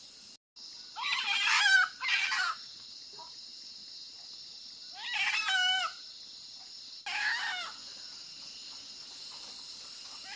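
A rooster crows three times, about a second in, at about five seconds and at about seven seconds, over the steady high chirring of crickets.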